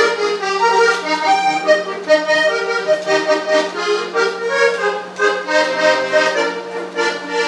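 A diatonic button accordion with three rows of treble buttons plays a lively melody in full chords. The notes change several times a second over a steady held low bass note.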